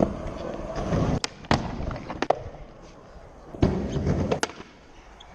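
Skateboard rolling on ramps, a low rumble of the wheels broken by about five sharp clacks of the board and trucks striking and landing.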